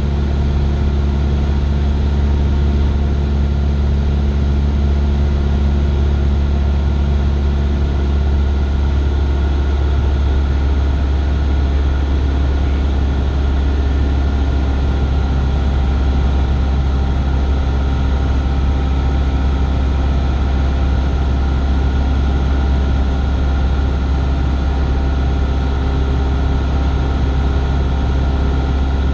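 Cessna 172's piston engine and propeller droning steadily inside the cabin in flight, its pitch shifting slightly about nine seconds in.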